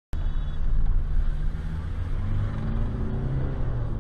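Car engine and road rumble heard inside the cabin, a steady low drone.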